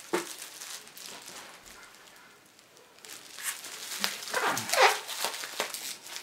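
Plastic bubble wrap crinkling and rustling as a bubble-wrapped package is picked up and handled, starting about three seconds in after a brief quiet stretch, with a few short squeaky sliding sounds near the middle.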